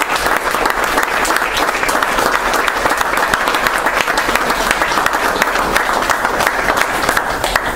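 Audience applauding, a dense patter of many hands clapping that stops suddenly near the end.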